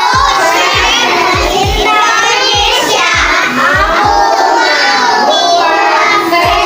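A group of children singing and shouting together over electronic dance music with a steady, fast bass beat.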